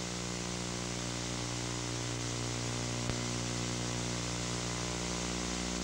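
Steady electrical mains hum with a buzz of overtones over constant videotape hiss, with one faint click about three seconds in.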